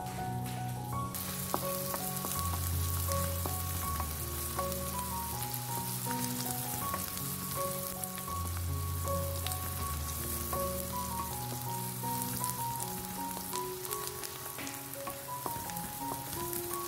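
Chopped red onions sizzling in hot oil in a frying pan, a dense crackling hiss that starts about a second in. Background music with a melody and bass notes plays throughout.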